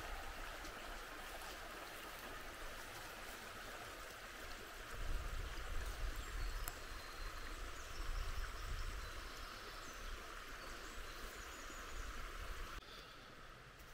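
Small forest brook babbling over stones: a steady rush of water that drops away sharply near the end. Brief low rumbles come about five and eight seconds in.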